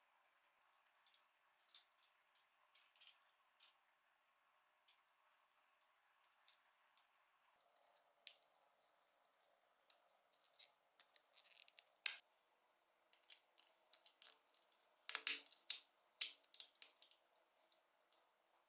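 Light, irregular clicks and taps of small hard parts of a miniature model car being handled and fitted, with a louder cluster of clicks about fifteen seconds in.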